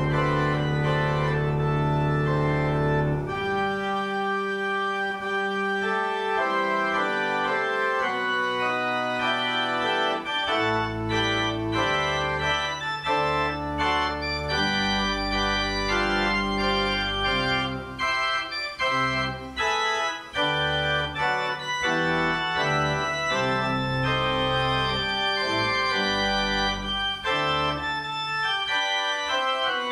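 Church organ playing: one full chord held for about three seconds, then a run of changing chords over a low pedal bass line.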